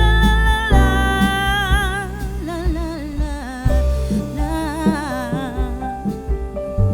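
Background music with a sung melody over bass and sustained instrumental notes.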